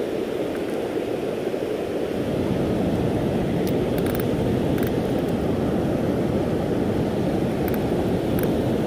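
Rushing water of the New River at Sandstone Falls, a steady low rush that swells slightly about two seconds in, with a few faint ticks over it.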